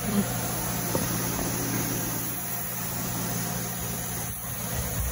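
A steady low hum with an even hiss beneath it, like a running appliance or fan in a kitchen.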